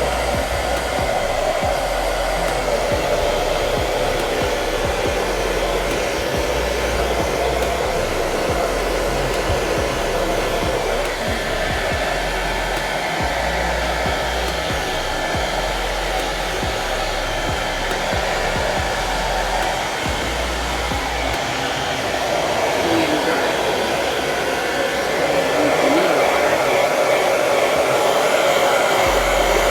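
Handheld hair dryer running steadily, blowing air to dry a freshly bathed guinea pig's fur; it gets a little louder near the end.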